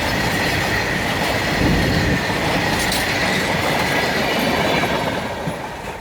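Goods train wagons rolling along the rails with a faint, steady wheel squeal, growing quieter near the end as the train moves away.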